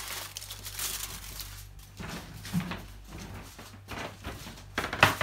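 Aluminium foil covering a baking tray crinkles and rustles as the tray is handled and carried, with scattered knocks and one sharp clack near the end.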